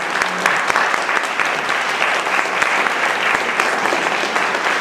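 Audience applauding: dense, steady hand clapping that holds at an even level.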